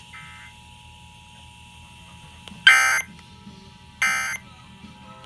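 Emergency Alert System digital data bursts over the radio: two short, shrill, screeching buzzes about a second and a quarter apart. They are the end-of-message code sent after the spoken test message.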